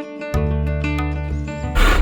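Plucked acoustic-guitar background music, joined by a low steady hum about a third of a second in. Near the end a saw starts cutting wood in quick strokes, louder than the music.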